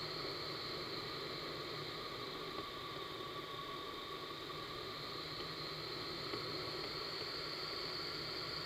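Vertical wind tunnel running: a steady rush of moving air and fan noise, with a couple of steady whining tones held over it.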